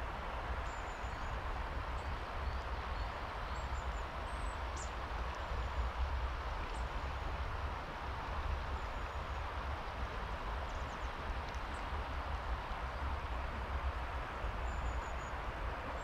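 Footsteps of a hiker walking a forest path in autumn, over a steady rushing background noise, with a few faint, short, high bird chirps.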